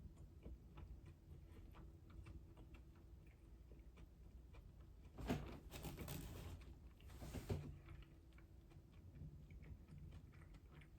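Faint chewing and small mouth clicks close to the microphone. About halfway through comes a louder noisy sound lasting about two seconds, in two parts.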